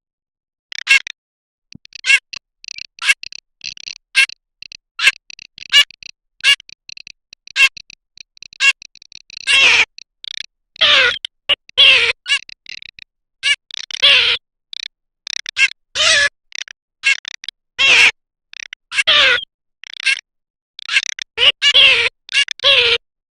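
Garganey calling: short, clipped calls about once a second, then from about ten seconds in, louder and longer calls in quick succession.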